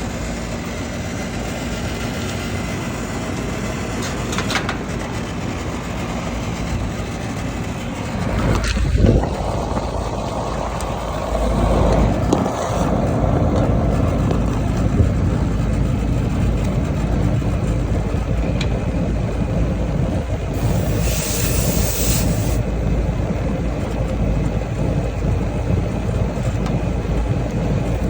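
Outdoor AC condensing unit running with its compressor and condenser fan, a steady mechanical hum, now working again on a new run capacitor. The hum grows louder about eleven seconds in, and a short hiss comes about two-thirds of the way through.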